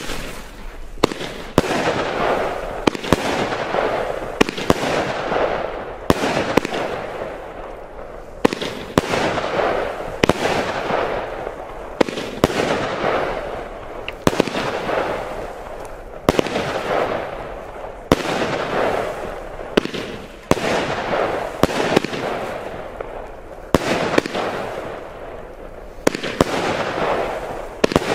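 Nikko 'Outlaw' 25 mm firework battery firing its shots one after another, about one every one and a half seconds. Each shot is a sharp bang followed by a crackling hiss as the crackling comet climbs and bursts.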